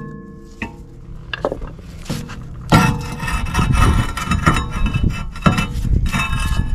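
Rusty rear brake disc on an Audi A3 being twisted and rocked by hand to free it from the rusted hub, metal grating and scraping on rust. A few single knocks in the first couple of seconds, then continuous rough scraping from about three seconds in.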